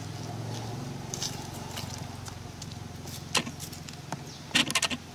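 A motor vehicle's engine running in the background, a low steady hum that swells about a second in and slowly fades. Near the end come a few sharp clicks and crackles.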